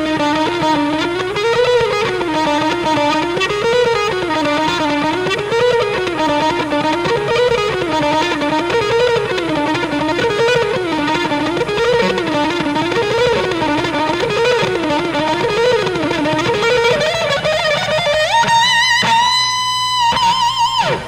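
Fender Stratocaster electric guitar played on its front (neck) single-coil pickup: a flowing improvised lead line that keeps climbing and falling in a repeated phrase about once a second. Near the end it slides up to a high note held with vibrato.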